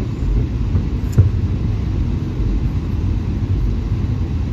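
Steady low rumble heard aboard a VIA Rail passenger train, with one sharp knock about a second in.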